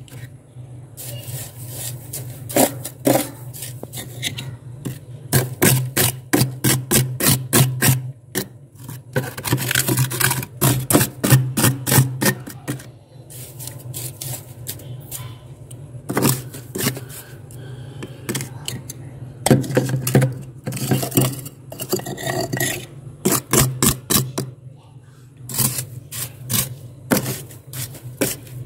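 Stainless steel glass scraping through thick, flaky freezer frost in runs of quick, rasping strokes with short pauses between them, over a steady low hum.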